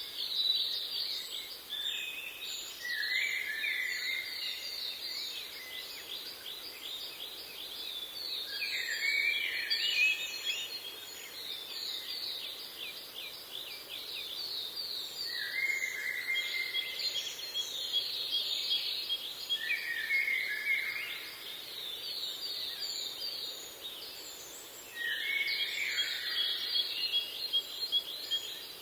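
A chorus of songbirds singing, with rapid trills of quick falling chirps and short warbled phrases overlapping, over a soft background hiss.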